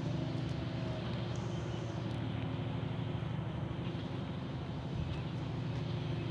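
Sany SY500H crawler excavator's diesel engine running steadily at an even, constant pitch while its boom and bucket are worked.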